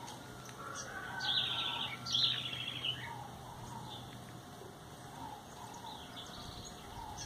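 Small wild birds calling: two loud, quick descending trills about one and two seconds in, with softer, lower chirping notes scattered through the rest.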